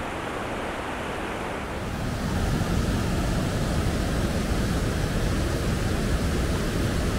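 Rushing water of a river running high through rapids: a steady wash of white noise that grows louder and heavier about two seconds in.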